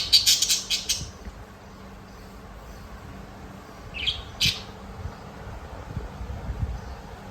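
Parakeets chirping: a quick run of about half a dozen sharp, high chirps at the start, then two more chirps about four seconds in, over a low steady hum.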